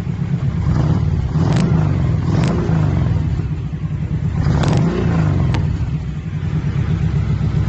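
Kawasaki Vulcan motorcycle engine running through aftermarket 4-inch slip-on exhaust pipes, a deep rumble at idle that swells twice with light throttle blips. A few sharp ticks sound along the way.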